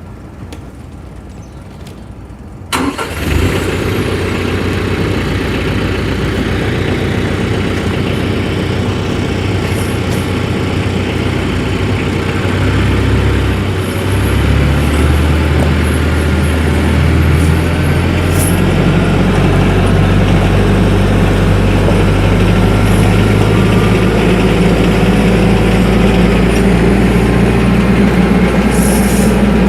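TYM 474 compact tractor's diesel engine running, coming in abruptly about three seconds in; midway its engine note shifts, then holds steady.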